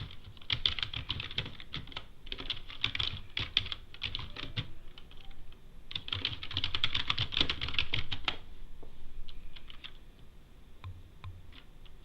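Typing on a computer keyboard: rapid runs of keystrokes that thin out to a few scattered key presses after about eight seconds.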